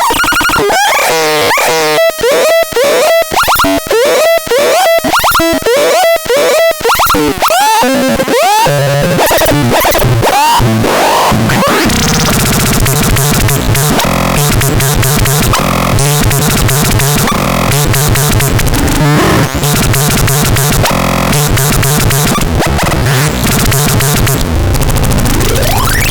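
Analogue-style synthesizer making harsh, noisy electronic sounds: first a pulsing pattern of swooping notes at about two a second, then from about ten seconds in a dense, noisy drone over steady low tones, with a rising sweep near the end.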